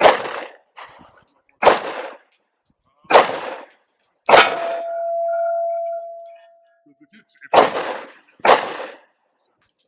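Gen 2 Glock 23 .40 S&W pistol fired in slow aimed shots, six in all, with a longer pause before the last two. A steel target rings with a steady tone for about two seconds after the fourth shot.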